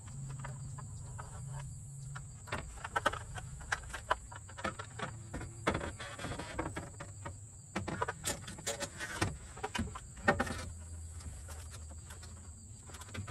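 Aluminium-framed solar panel being fed up into a ground-mount rack: scattered knocks, clicks and scrapes of the frame against the metal rails and neighbouring panels as it is set in place.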